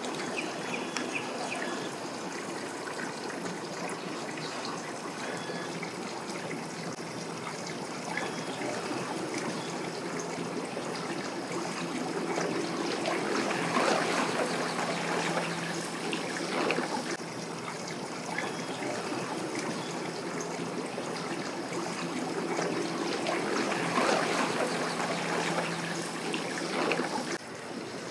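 Water trickling and splashing, with an engine running at a steady low hum underneath that is strongest through the second half.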